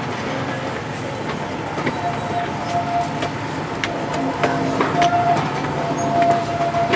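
Diesel locomotive hauling its passenger train away, its engine running under power, with clicks from the coach wheels passing below. A steady high-pitched squeal sets in about two seconds in.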